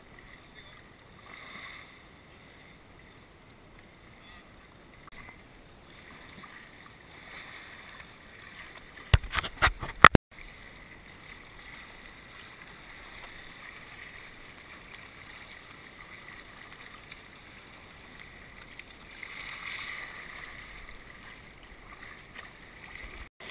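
Kayaks being paddled on the water: a low, steady wash of water and paddle noise. A cluster of loud sharp knocks comes about nine to ten seconds in and cuts off suddenly.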